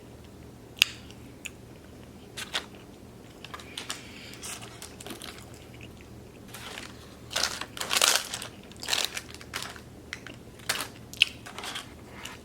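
Close-miked mukbang eating: chewing and crunching mouth sounds with scattered sharp clicks, busiest a little past the middle.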